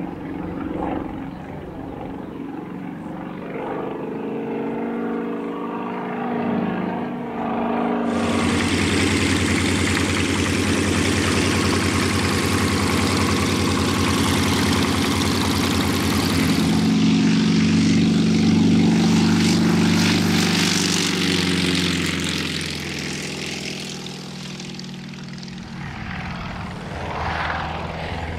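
Yakovlev Yak-55M's nine-cylinder M-14P radial engine and propeller running at high power for takeoff. The sound jumps suddenly louder about eight seconds in, then stays loud and steady, easing a little near the end.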